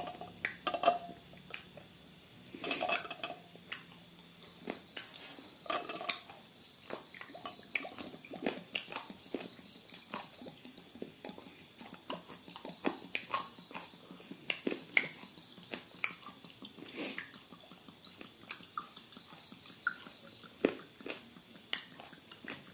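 Liquid poured from glass bottles into a glass tumbler: first a clear liquid, then Imperial Blue whisky, with many small clinks and knocks of bottle and glass scattered throughout.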